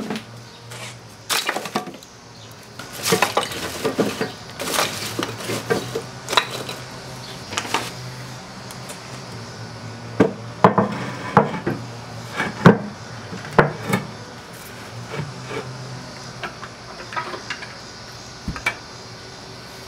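Irregular sharp knocks and clinks of wood chunks and metal in a Big Green Egg kamado grill as it is worked with a heat-gloved hand, the loudest cluster about halfway through.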